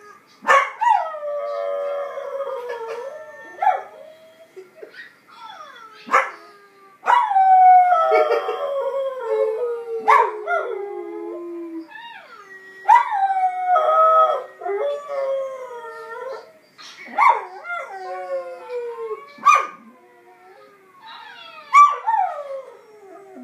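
An Australian Kelpie howling, a series of long howls that start high and slide down in pitch, with short breaks between them.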